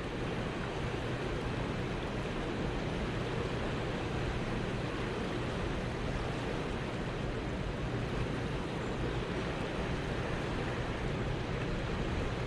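Steady rushing of fast-moving river water.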